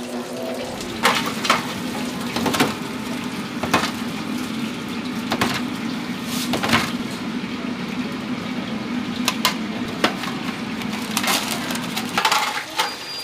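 Food-stall handling noise: about ten scattered sharp knocks, clacks and crunchy rattles of fried food and utensils in a metal seasoning box, over a steady low hum that stops near the end.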